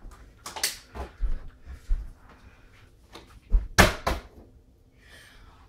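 A plastic water bottle tossed in a flip trick and hitting down: scattered light knocks and thumps, then a cluster of sharp, loud hits about three and a half seconds in. Footsteps on the floor.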